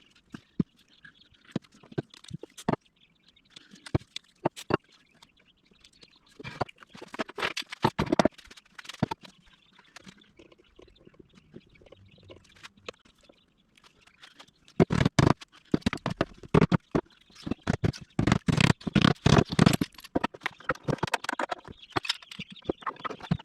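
Workshop handling sounds: wooden parts and clamps knocked, set down and shuffled on a bench. Scattered sharp clicks at first, a busier run of knocks and scraping about a third of the way in, and a louder, denser stretch of knocking and rattling in the second half.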